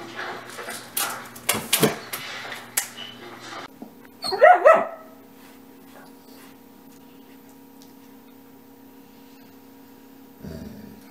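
A run of knocks and rustles from German Shepherds playing with toys, then about four seconds in a dog gives a brief burst of yips and whines, the loudest sound. After that only a low steady hum, with a short thump near the end.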